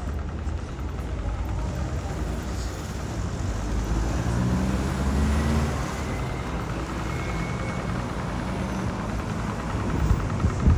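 Street traffic: a car's engine and tyres swell as it passes close, loudest about four to six seconds in, over a steady low rumble of the city street.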